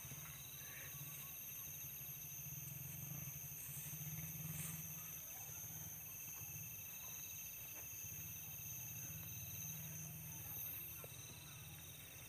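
Night insects, crickets among them, trilling steadily in several high pitches at once, over a low steady rumble.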